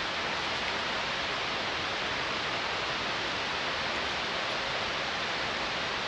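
Steady, even rushing of water, with no change in level.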